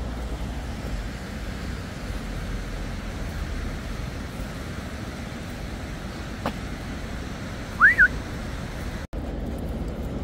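Steady outdoor rushing noise with a low rumble. About eight seconds in, a short, bright rising whistle sounds twice in quick succession.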